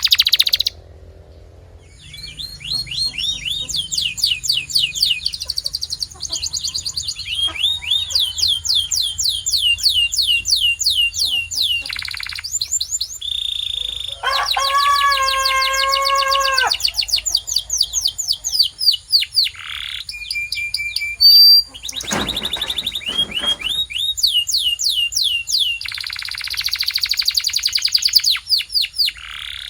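Domestic canary singing: long rapid trills of quickly repeated high sweeping notes. About halfway through comes a lower, rolling note that holds for a few seconds.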